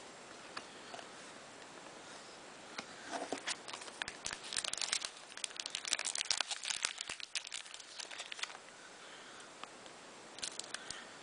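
Crinkling and tearing of a trading-card pack wrapper being opened and handled, a dense run of sharp crackles from about three seconds in to about eight and a half, starting again near the end.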